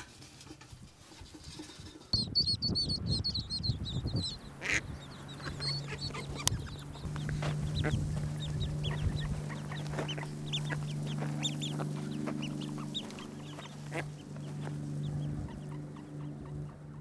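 A brood of ducklings peeping, with many short high calls, starting about two seconds in and soon coming thick and fast. Under them runs a steady low hum.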